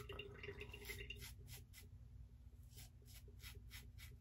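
Faint scraping of a stainless steel open-comb safety razor cutting stubble on the upper lip, in short quick strokes of about five a second, with a pause near the middle.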